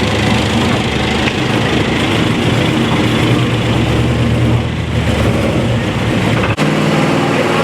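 Car engine running steadily at idle, loud and close. About six and a half seconds in it cuts off abruptly and a different engine note takes over.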